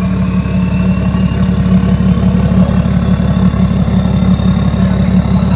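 BMW X5 diesel engine idling through a deleted exhaust with no DPF or muffler, a loud steady low throb. A faint high turbo whistle climbs slowly in pitch over it.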